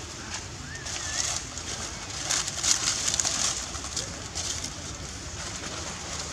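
Dry leaf litter rustling and crackling in short irregular bursts as macaques move and forage through it, with a brief wavering bird chirp about a second in.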